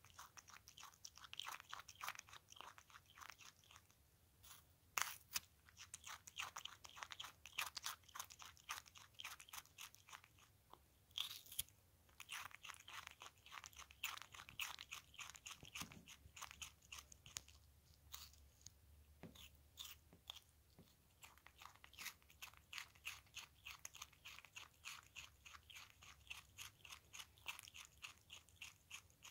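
A ringtail possum chewing cucumber: a quick, steady run of small crisp crunches, about three or four a second, with a few short pauses.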